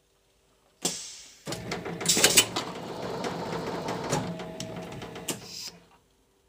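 Plastic bottle blow-moulding machine working through a cycle: a sudden hiss of compressed air about a second in, then several seconds of mechanical clattering and clicking as the mould and clamp move, stopping abruptly near the end.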